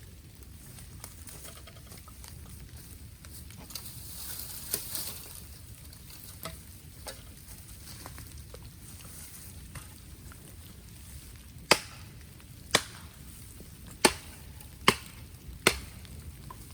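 Bamboo burning in an open fire, crackling steadily, with a brief hiss about five seconds in and then five sharp, loud cracks spaced about a second apart over the last five seconds.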